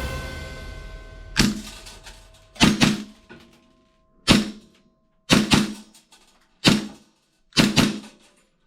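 Toy guns firing: a series of sharp pops at uneven intervals, several in quick pairs, each with a short ringing tail.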